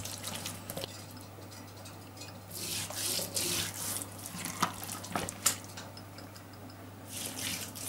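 Oily hands rubbing and patting vegetable oil over the skin of two whole scored carp: wet smearing sounds in short spells, about two and a half seconds in and again near the end, with a few light taps in between, over a faint steady low hum.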